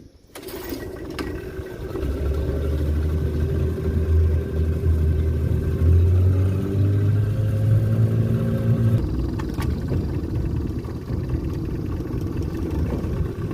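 A motor engine running steadily, its pitch stepping up about six seconds in and shifting again near nine seconds.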